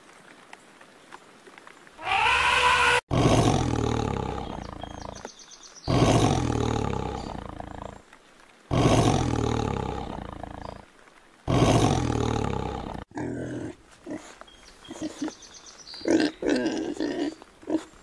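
Tiger roaring: a series of long, loud calls about two seconds each, each dropping in pitch, with short gaps between. In the last few seconds, softer short grunts from pigs.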